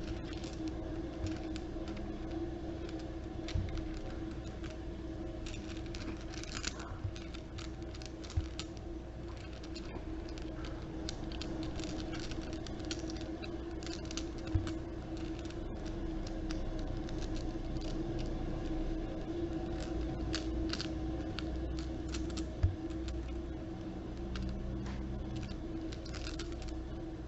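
Small travel dominoes being handled: scattered light clicks and taps of the little tiles, with a few sharper clicks, over a steady low hum.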